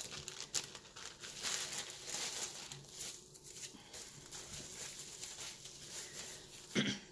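Clear plastic packaging crinkling and rustling in irregular fits and starts as it is handled and opened around a makeup palette.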